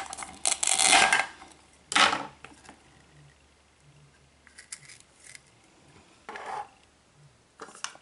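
Toy plastic knife cutting through a Velcro-joined plastic toy apple: a loud rasping Velcro rip about half a second in, a second short burst about two seconds in, then softer plastic taps and clicks as the halves are handled and set down.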